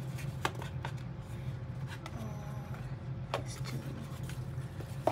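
Cardboard jewellery boxes, pouches and satin ribbon being handled: light rustling and a few sharp taps, over a steady low hum.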